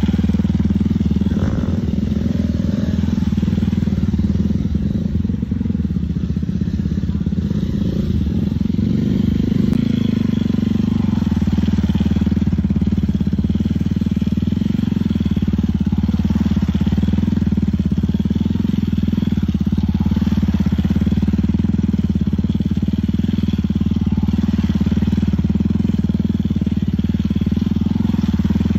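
Stunt motorcycle's engine running at steady, fairly low revs during slow-speed circling, with little change in pitch.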